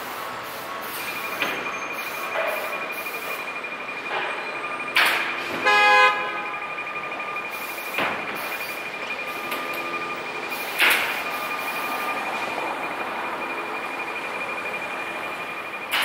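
Japanese railway level crossing's electronic warning bell ringing in a steady, rapid pulse. A horn sounds briefly about five to six seconds in, and a few short knocks come at intervals.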